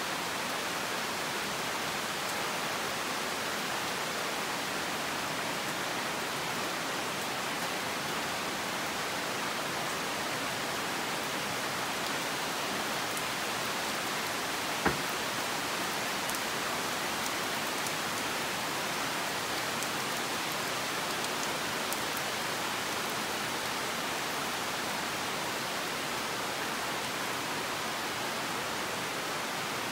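Steady rain falling on rainforest foliage, an even hiss throughout, with one sharp tap about halfway through.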